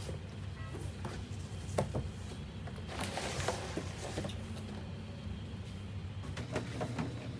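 Cardboard shipping box being opened by hand: flaps scraping and rustling as they are folded back, with a louder scrape about three seconds in and a few light knocks, over a steady low hum.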